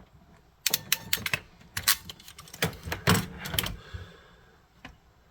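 Small sharp clicks and taps of hand tools working a wire and pin on a pinball machine's wiring connector. There are about a dozen in quick, uneven succession over about three seconds, starting just under a second in.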